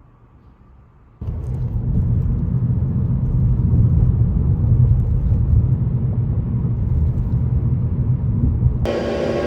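A loud, steady low rumble, like a vehicle in motion, starting suddenly about a second in. Near the end it cuts abruptly to a different, steadier hum with several held tones.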